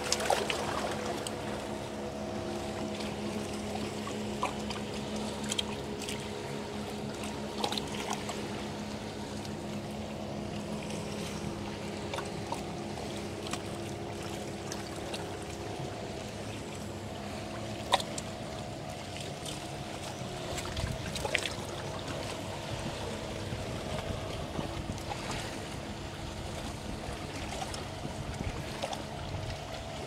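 Steady drone of a boat engine over the wash of calm sea water, with a few short sharp clicks.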